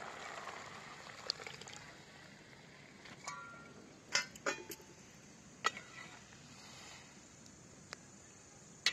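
Thin ground-masala liquid pouring from a steel plate into a steel pot of curry, fading out about two seconds in. After that, sharp metal clinks of a steel ladle against the steel pot come several times while the curry is stirred.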